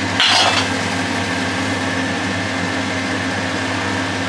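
Steady machine-like hum in a kitchen, with a faint even hiss under it, and one short noisy burst about a quarter second in.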